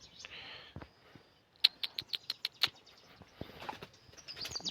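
A bird calling: a quick run of about eight short, sharp chirps over about a second, starting near the middle.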